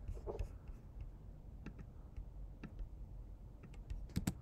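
Faint, scattered computer mouse clicks over a low room hum, with a sharper pair of clicks near the end.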